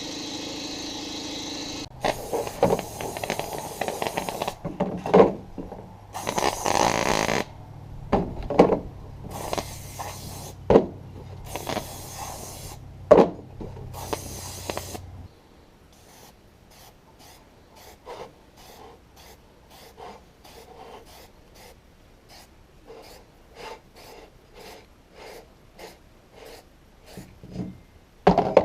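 Tools working an old, stiff mower tire: irregular scraping and rubbing with several sharp knocks over a low steady hum. Near the midpoint this gives way to a faint regular ticking about twice a second, and there is one louder clatter at the very end.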